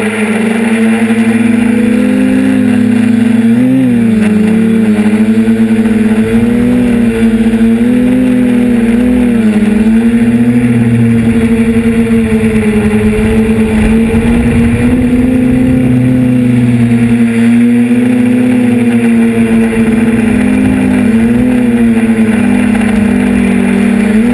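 Onboard motor and propeller hum of a small radio-controlled aircraft carrying the cameras. It is a steady buzz whose pitch wavers up and down with the throttle, with wind rumbling on the microphone.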